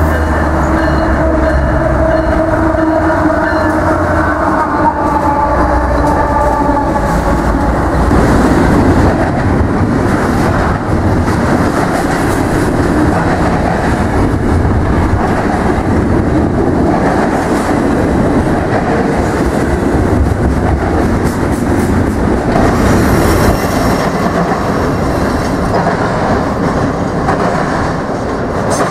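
BNSF GE diesel freight locomotives passing close by, their engines giving a low drone with several steady tones for the first several seconds. A long train of double-stack container cars then rolls by in a steady rumble with wheel clatter.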